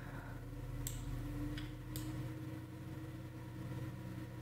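A few faint, sharp computer-mouse clicks, about one and two seconds in, over a steady low hum.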